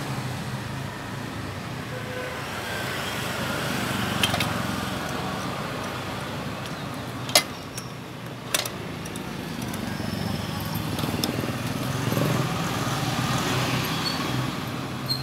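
Metal clicks from a wrench turning the locking nut on a sewing-machine thread stand, a handful of sharp clicks with the loudest about halfway through, over a steady engine-like background rumble.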